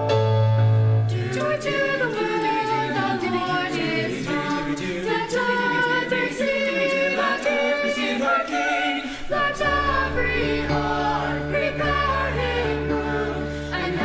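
Mixed-voice high school choir singing a Christmas carol arrangement in several parts, the voices moving in harmony; a low held note comes in about two-thirds of the way through.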